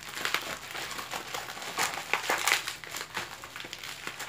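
Plastic packaging crinkling as it is handled and opened by hand, an irregular run of crackles.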